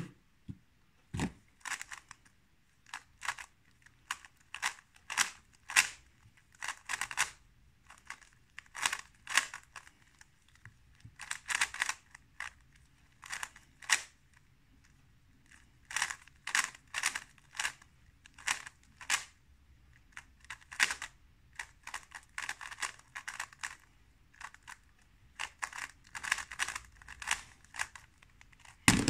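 Stickerless 3x3 speedcube being turned fast: bursts of rapid plastic clicking with short pauses between them. A low knock about a second in, and a loud slap near the end as hands come down on the speedcubing timer to stop the solve.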